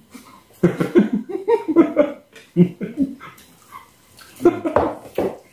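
Several men laughing together in short bursts, with snatches of talk in between.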